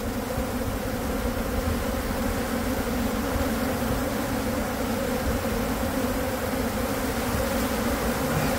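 Steady buzzing of a large honey bee colony, its nest in a brick wall cavity opened up and the bees disturbed.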